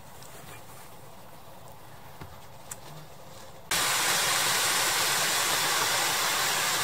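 Faint hiss with a couple of light clicks, then, just past halfway, the loud, steady rush of a small waterfall cascading down a rock face.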